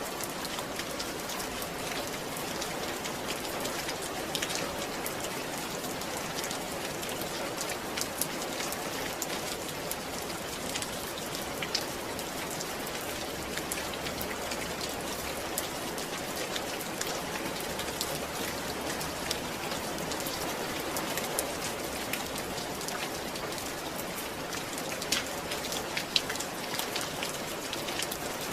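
Steady rain falling, with the sharp ticks of individual drops hitting a surface.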